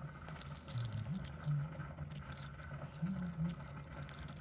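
Light metallic clicks and rattles, a series of small, irregular ticks as a wristwatch and small tools are handled on a workbench.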